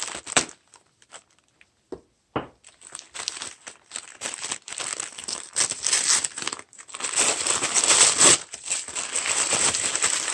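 Wrapping paper or tissue being crinkled and torn open by hand, starting with a few light clicks and then rustling steadily and irregularly, louder in the second half.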